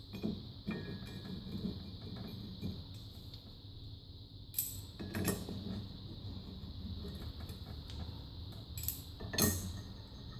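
Metal clinks and scrapes of an Allen key and steel crank bolts as the bolts are threaded into a spin bike's crank arm, with a few sharper knocks, the loudest about five seconds in and again near the end.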